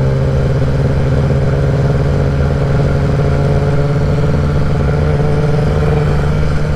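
Kawasaki ZX-10R's inline-four engine with a Graves race exhaust, running at a steady cruise in traffic over road noise.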